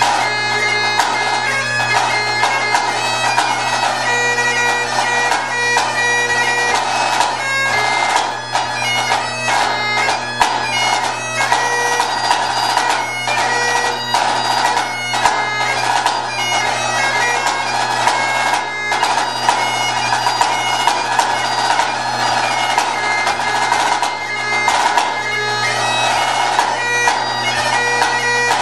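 Great Highland bagpipe playing a tune over its steady drones, accompanied by a pipe-band snare drum played with quick, sharp stick strokes.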